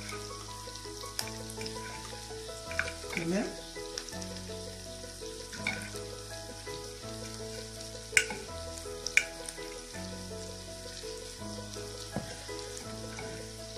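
Chopped onions frying in oil in a pan, a steady sizzle. Two sharp clicks about eight and nine seconds in, from a utensil striking the glass dish of sausages.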